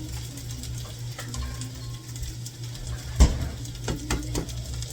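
Fried rice sizzling in a frying pan over a steady low hum, with scattered clicks of kitchen utensils and one sharp knock about three seconds in, followed by a few lighter knocks.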